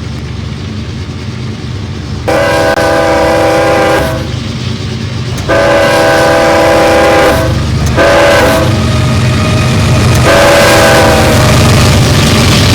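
Diesel freight locomotive's air horn sounding two long blasts, one short and one long, the grade-crossing signal, over the rumble of the engine. The horn is a loud chord of several notes.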